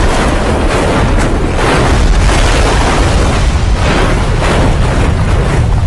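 A jet airliner crash-landing and skidding through sand: a continuous loud, deep rumbling roar of the fuselage ploughing the ground and breaking up, with repeated crunching impacts through it.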